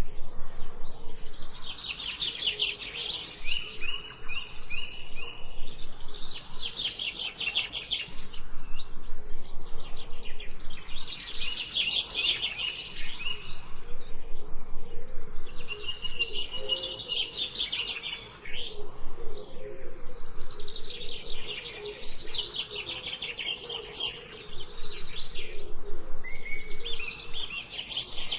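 Songbirds singing: rapid trilled phrases of quick descending notes, each a couple of seconds long, repeating every few seconds, over a faint lower call.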